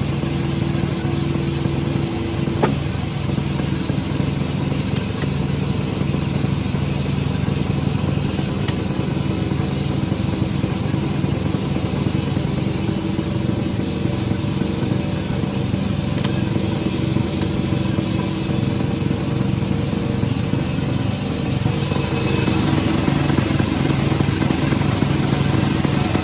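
Engine-driven sawmill machinery running steadily, with one sharp knock a few seconds in, getting louder and hissier in the last few seconds.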